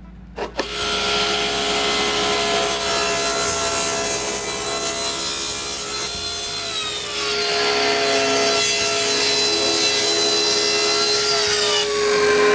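King table saw starting up and running, crosscutting a square wooden tube: a steady whine over the hiss of the blade in the wood, its pitch sagging about halfway through and again near the end.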